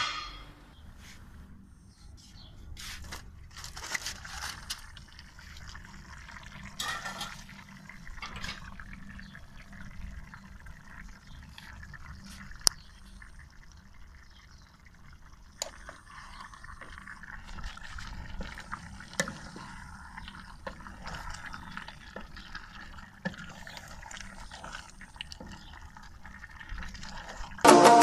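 Thick chicken and vegetable curry being stirred with a wooden spoon in an aluminium pot, making wet squelching and sloshing, with a few sharp taps of the spoon against the pot.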